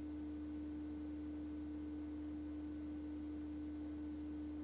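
A single steady electronic tone holding one pitch without change, with a fainter low hum beneath it.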